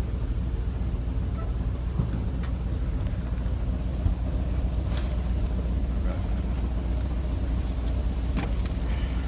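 1937 Ford fire truck's flathead V8 idling steadily with the truck standing, with a few light clicks about halfway through.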